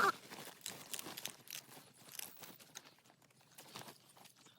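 Faint, scattered crackling and rustling with small irregular clicks.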